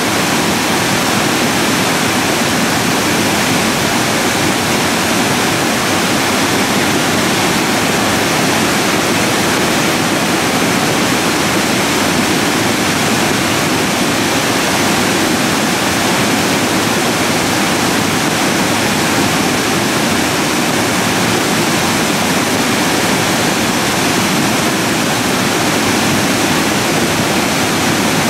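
Debris flow of muddy water and sediment rushing down its channel: a steady, loud rushing noise with no separate knocks standing out.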